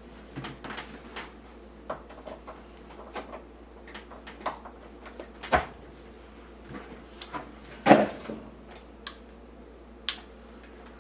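Power cords and plugs being handled and connected: scattered light clicks and knocks, with a sharper knock about five and a half seconds in and the loudest about eight seconds in, over a low steady hum.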